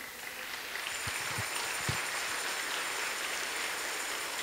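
Congregation applauding, swelling in over the first second and then holding steady.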